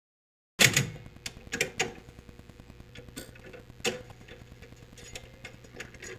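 Vinyl record lead-in groove: the stylus sets down with a sudden loud click, then scattered clicks and pops over a faint steady hum before the song begins.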